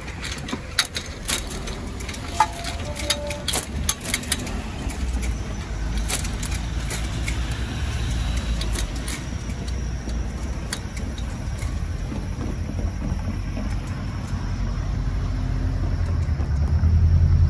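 Cars and a van driving across a level crossing, with a steady low traffic rumble. A run of sharp clicks and knocks comes in the first few seconds, and the low rumble swells louder near the end.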